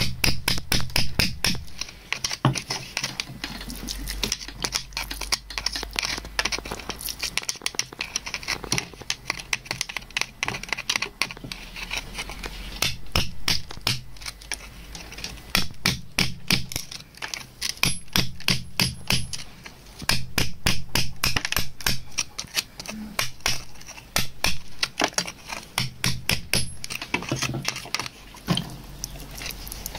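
A narrow metal blade scraping and tapping against wet rock and mud around an agate, a rapid run of clicks and scratches with brief pauses every few seconds.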